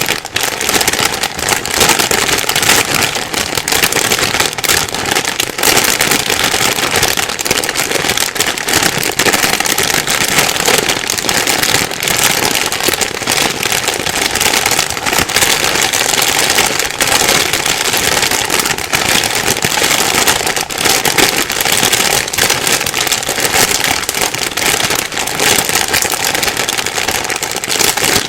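Plastic bag being rustled and crinkled without a break: a dense, steady stream of crackling.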